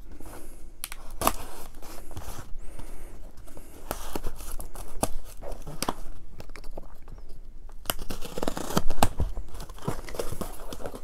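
A folding pocket knife slitting the packing tape on a small cardboard box, with tape tearing and cardboard flaps being pulled open. Irregular clicks and scrapes, with one heavier knock near the end.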